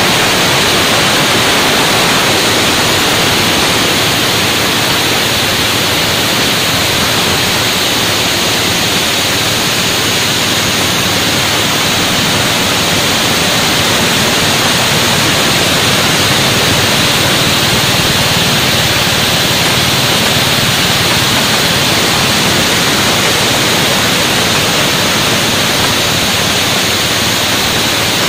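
Petrol-engine-driven coffee huller running while hulling dry parchment coffee beans: a loud, steady rushing noise that never lets up.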